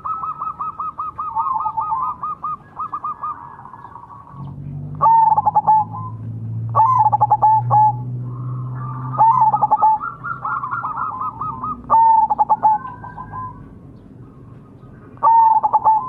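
Zebra dove (perkutut) of the 'Majapahit' type singing: five loud cooing phrases about two to three seconds apart, each a sharp opening note followed by a quick run of rolling coos. A faster, continuous rolling trill fills the first three seconds.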